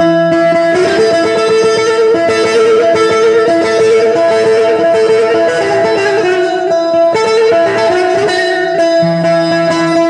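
Amplified Kurdish tembûr, a long-necked plucked lute, improvising a slow melody in the style of the mey, with wavering ornamented notes over a steady held drone.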